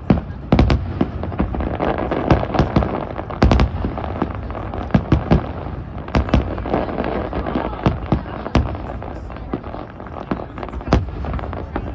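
Fireworks display: aerial shells bursting in a rapid, irregular string of booms and bangs, several a second at times, over a continuous crackle.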